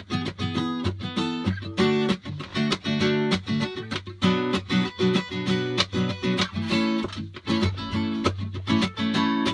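Acoustic guitar strumming chords in a steady, quick rhythm: an instrumental song intro with no singing.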